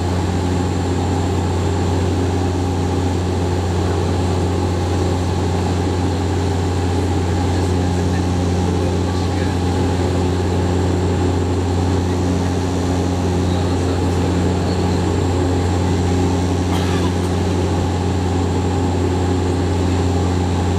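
Steady drone of a Bombardier Dash 8 Q400's turboprop engine and six-bladed propeller, heard inside the cabin during the climb after takeoff: a strong low hum with evenly spaced steady tones above it and a rushing hiss.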